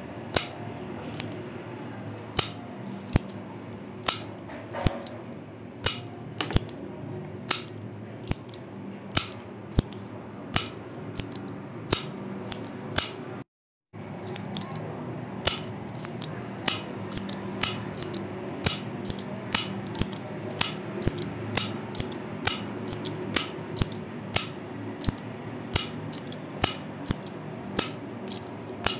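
A retractable pen's push button clicked over and over: sharp clicks, about one to two a second, over a steady low hum. The sound drops out briefly about halfway through.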